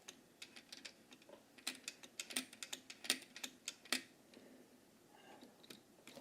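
Quick, irregular plastic clicks and ticks as the sliding plastic parts of a printer's waste ink pump unit are worked by hand, thinning out about four seconds in.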